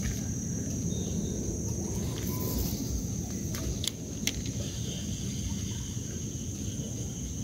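Insects buzzing steadily at a high pitch over a low rumble, with a couple of sharp clicks about four seconds in.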